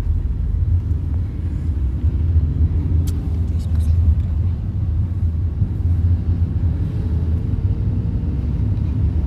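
Loud, steady low rumble that starts and stops abruptly, with a few faint clicks about three seconds in.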